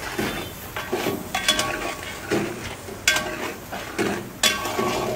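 Long steel spatula scraping and knocking against a large steel cooking pot while stirring chicken pieces into frying masala, the pot ringing briefly after the harder strokes, three of which stand out, about a second and a half apart, over a sizzle.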